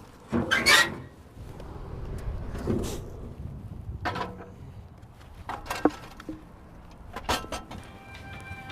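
A waste receptacle being handled: a loud clatter about half a second in, then separate knocks and clunks of its lid, door and latch every second or two.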